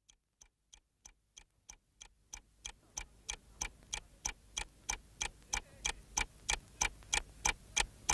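Regular ticking, about three ticks a second, that swells steadily from very faint at the start to loud near the end.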